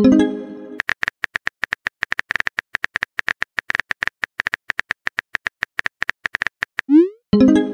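Rapid, steady phone-keyboard typing clicks, many a second, as a text message is typed out. A short pitched send chime sounds right at the start, and near the end a rising swoosh is followed by another chime.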